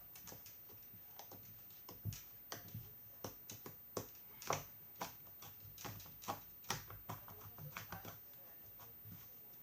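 Soft slime, reworked with toothpaste and cream, being squeezed and poked by hand, giving irregular soft clicks and pops, one or two a second.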